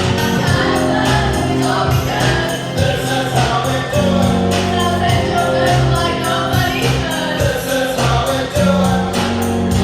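Music: a choir singing over a steady beat with jingling percussion.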